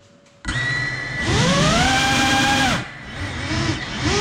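GEPRC CineLog 35 cinewhoop's motors and ducted propellers spinning up sharply about half a second in, the whine rising in pitch and holding, then dropping away about two and a half seconds later. A few short throttle blips follow, one near the end.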